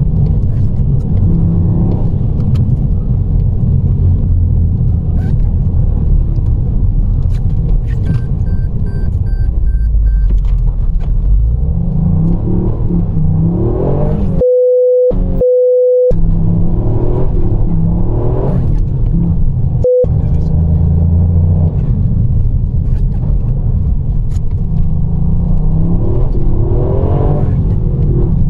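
Car driving a rally stage at recce pace: a steady low engine and road rumble, with the engine revving up and falling back several times. About halfway through, a steady electronic beep of about a second and a half, with a short break, replaces all other sound, and a brief blip of the same beep follows a few seconds later.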